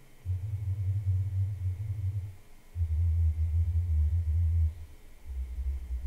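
Monolith Audition B5 bookshelf speaker playing bass test signals, uncorrected with no EQ or room correction. There are three bursts of about two seconds each with short gaps between them, each lower in pitch than the last, and the last near 63 Hz.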